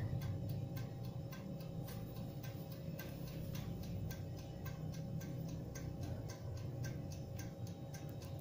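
Countertop electric oven's clockwork timer ticking steadily, about four ticks a second, counting down while the oven bakes, over a low steady hum.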